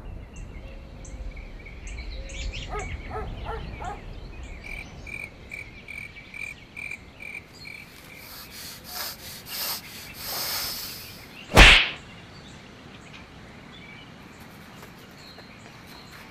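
Quiet outdoor background with faint high chirping in short, evenly spaced pulses, then a single loud, sharp crack about eleven and a half seconds in.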